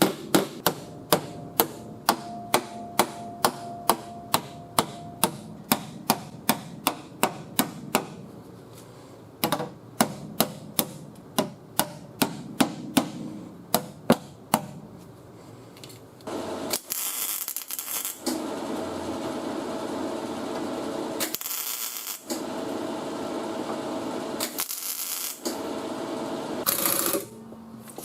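A body hammer striking sheet metal about twice a second, knocking down high spots on a quarter panel as it is pulled out, with a short pause partway through. Near the middle the hammering stops and a steady hissing noise takes over, broken by a few short, sharper bursts.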